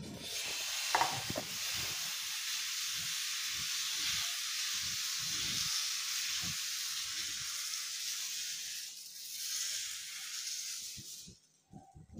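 Dosa batter sizzling as it is spread in circles over a hot, oiled cast-iron tava, with soft scrapes and knocks of the steel ladle underneath. The hiss cuts off about a second before the end.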